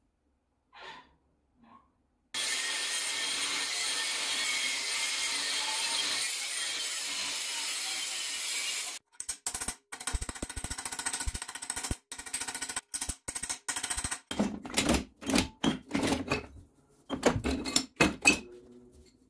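A power tool runs steadily for about six seconds and cuts off abruptly, followed by a quick, irregular series of clicks and knocks of metal workshop handling.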